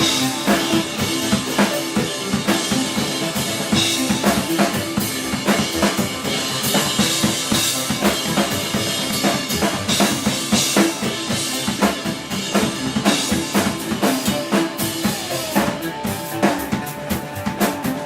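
Live band playing loudly, with the drum kit to the fore: bass drum and snare hits driving a steady beat under the other instruments.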